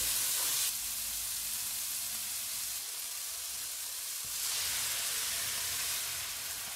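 Carrots and tomatoes sizzling as they are stir-fried in a hot non-stick wok, stirred with a wooden spatula. The sizzle grows louder for a couple of seconds past the middle as a little water is poured into the hot pan.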